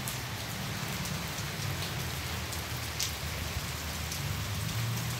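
Heavy rain falling steadily on trees and ground, an even hiss with a few sharp ticks of nearby drops.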